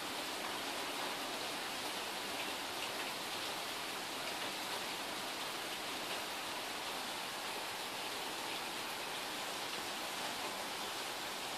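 Steady rain shower falling: an even, unbroken hiss of rainfall with no thunder.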